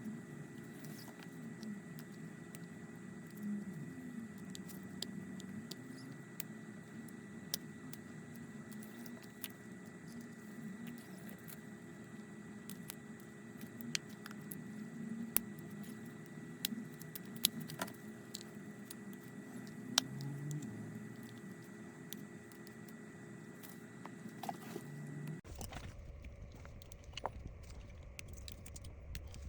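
Faint small clicks, ticks and light scrapes of hand tools working on the opened phone's internals, scattered irregularly over a steady low electrical hum. About twenty-five seconds in, the background hum changes abruptly.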